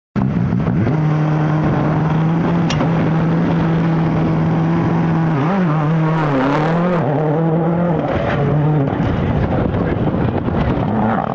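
Ford Focus WRC rally car's turbocharged four-cylinder engine idling with a steady pitch. About five and a half seconds in, the pitch dips and rises a few times under the throttle. Near nine seconds the steady note gives way to a rougher sound as the car pulls away.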